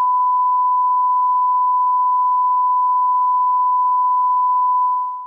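Steady 1 kHz sine test tone, the beep that goes with television colour bars, held at one unchanging pitch and fading out near the end.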